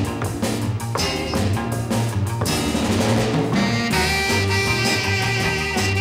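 Swing-style jazz band music with brass and a drum kit playing a steady beat; held notes come in about four seconds in.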